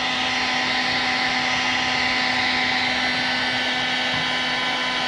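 Electric heat gun running steadily, its fan motor blowing hot air onto a thermoplastic heat-shrink hose clamp to shrink it down onto a coolant hose.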